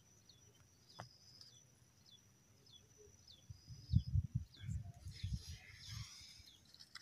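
Faint birdsong: a small bird repeating short falling chirps, a little under two a second, over a thin steady high tone. From about four seconds in, low thumps and rustling on the microphone take over.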